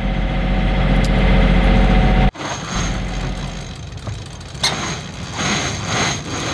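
Sailboat's inboard engine running with a steady drone, heard from inside the cabin, until it cuts off abruptly about two seconds in. Then a quieter rush of wind and sea with a few brief louder bursts.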